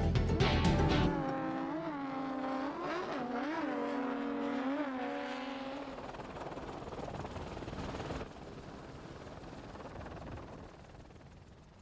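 Offshore racing powerboat engines running hard, their pitch rising and falling, then fading away. Music cuts off about a second in.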